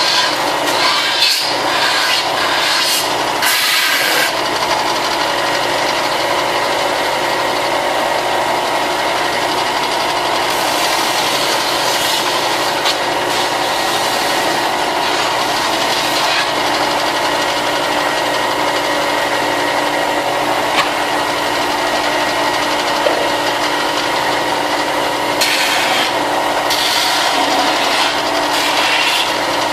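Power sander running steadily as it sands the edges of armor pieces: a constant motor hum under a rasping grind that grows louder and softer as the part is pressed on and eased off.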